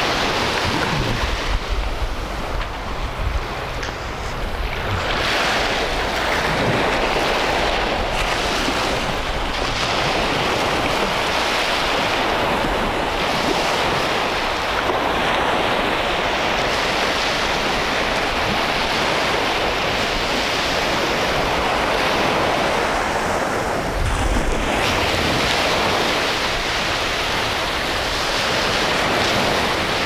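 Small sea waves breaking and washing up onto a sandy shore in a steady surf wash, with wind rumbling on the microphone now and then.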